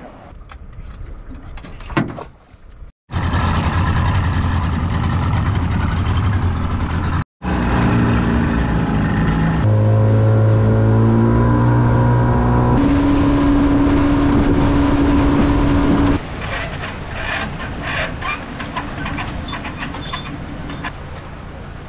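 A boat's 40 hp outboard motor runs at speed with water rushing along the hull, heard in a few clips cut together, its pitch stepping between them. Near the end it gives way to quieter wind and splashing in shallow water with scattered clicks.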